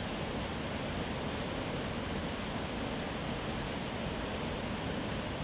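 Steady rushing of fast white water on a river, with a waterfall.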